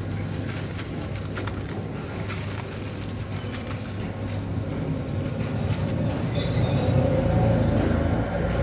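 Cling film crinkling as it is peeled off a glass bowl, over a steady low hum that grows louder in the last few seconds.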